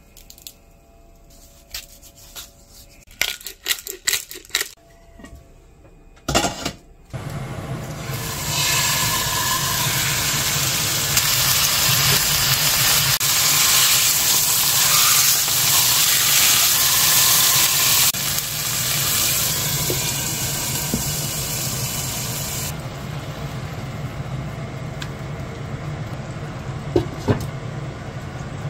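Beef searing in a frying pan: a loud sizzling hiss that sets in about seven seconds in and eases somewhat after about twenty-three seconds, over a steady low hum. Before it, a few sharp clicks and knocks.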